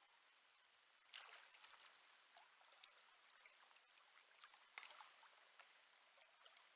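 Faint steady rush of river water, with two short bouts of splashing: about a second in, and again near five seconds.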